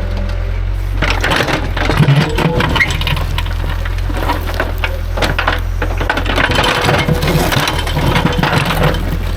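Diesel excavator engine running steadily while its bucket scrapes and knocks against rocks and dirt, with many clattering impacts from about a second in.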